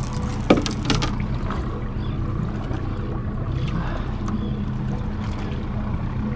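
Boat motor running steadily with a low hum, with a few sharp knocks about half a second and a second in.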